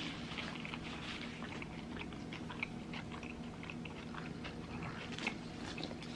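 A person chewing food close to the microphone: a steady run of soft, wet mouth clicks and smacks, with a few louder ones scattered through.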